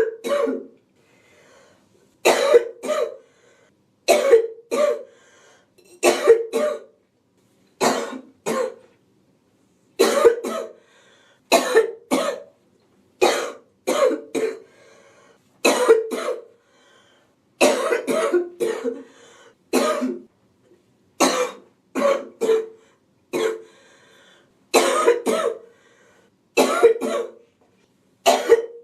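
A woman's wheezy, hacking cough from a cold, coming in groups of two or three coughs about every two seconds, with faint breaths between them.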